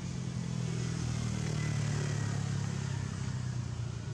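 A motor vehicle's engine passing, a steady low drone that grows louder to about two seconds in and then eases off.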